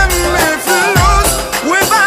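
Instrumental passage of an Egyptian Arabic pop song: a wavering, ornamented lead melody over a heavy kick-drum beat.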